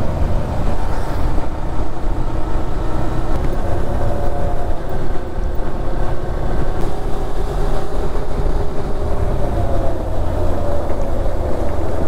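Honda Hornet 160R motorcycle's single-cylinder engine running steadily while riding at an even speed, its pitch drifting only slightly. Heavy low wind rumble on the microphone runs under it.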